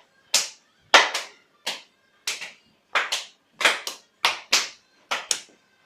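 Hand claps in a loose rhythm, about a dozen sharp claps, many falling in quick pairs.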